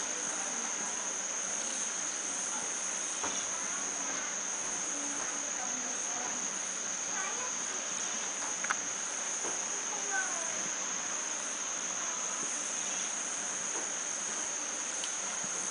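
Steady, unbroken high-pitched insect trill, with faint scattered short chirps and a couple of brief clicks over it.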